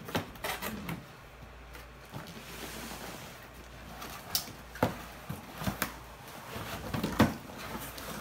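Cardboard box being opened by hand: flaps pulled, bent and torn, with a scatter of short knocks and scrapes against the cardboard.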